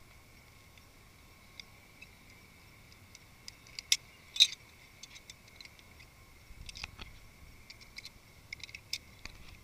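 Scattered sharp clicks and taps of handled gear, loudest twice about four seconds in, over a faint steady high-pitched hum.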